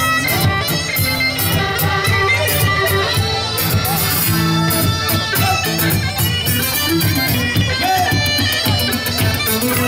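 Live Cretan folk music: an instrumental passage with a sustained lead melody over plucked strings and a steady beat.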